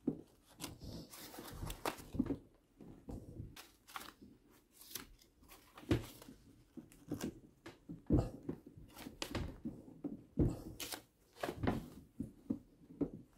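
A hand threading die in a die stock, turned on an oiled steel rifle barrel as it cuts 1/2-28 muzzle threads. It makes irregular clicks and scraping creaks, with a few louder knocks and the rustle of the paper wrapped around the barrel.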